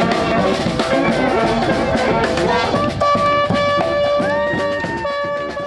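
Band music with a fast drum beat; from about three seconds in, long held notes ring out over the drums.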